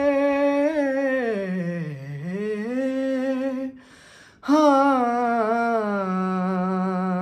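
A man's unaccompanied voice opening a noha (Shia lament) in long drawn-out notes. The first phrase sags low around two seconds in and climbs back. After a breath about four seconds in, a second long phrase settles onto a lower held note near the end.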